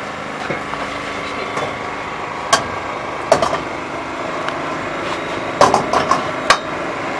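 Sharp metallic clanks of cooking utensils against steel woks: two single clanks a few seconds apart, then a quick run of four near the end, over a steady background hum.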